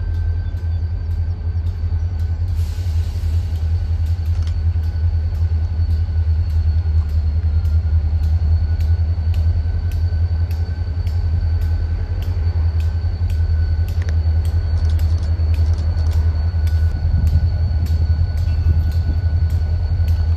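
Wheeling & Lake Erie diesel locomotives approaching slowly, their engines giving a steady low drone that grows fuller near the end. Over it a bell rings steadily, struck about twice a second, which fits the locomotive bell rung on the approach.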